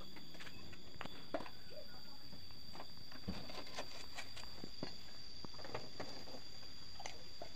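Scattered light clicks and taps from hand tools and metal trim being handled at a van's front corner, over a steady high-pitched hum.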